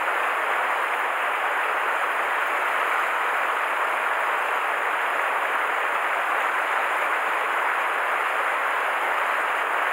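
Small mountain stream rushing steadily over rocks, a constant even hiss of running water.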